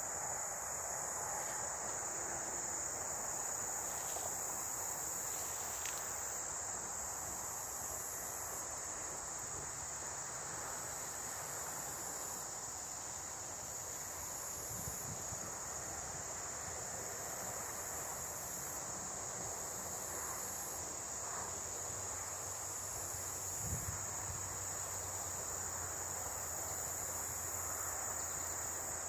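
Summer insects singing in one steady, unbroken high-pitched drone, with a single faint low thump late on.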